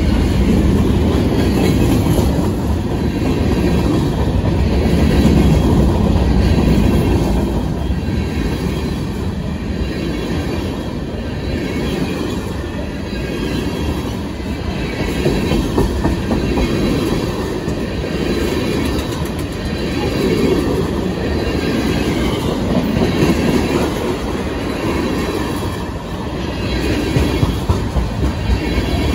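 CSX freight train's boxcars and tank cars rolling past close by, steel wheels clacking over the rail joints in a steady, repeating rhythm.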